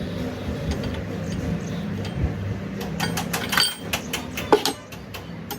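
A car engine running with a low steady hum, then a quick run of sharp metallic clinks and knocks over the last couple of seconds.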